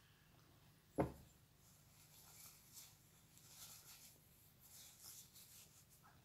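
Near silence at the end of a meal, broken by one sharp knock about a second in, then faint soft eating and mouth sounds.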